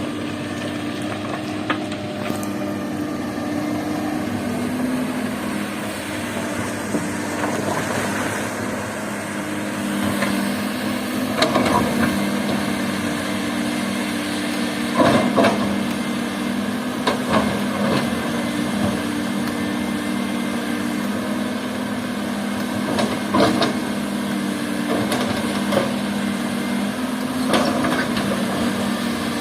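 Excavator diesel engine running steadily, with about five sharp clunks of rock spread through, as stone is dug and dumped into a dump truck.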